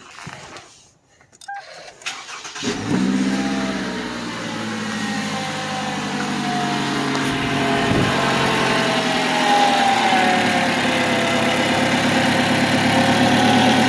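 Toyota 2AR-FE 2.5 L four-cylinder engine cranking and catching about three seconds in, then idling steadily with its drive belts removed, so the water pump is not turning. It runs without the rotating water-pump bearing noise and sounds like a regular four-cylinder.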